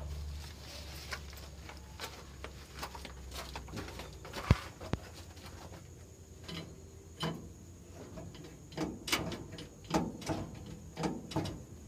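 Hammer taps and metal clatter from work on the underside of a vehicle, fitting a cover over a gear-shift linkage. The knocks come irregularly, with one sharp knock about four and a half seconds in and a run of taps in the second half.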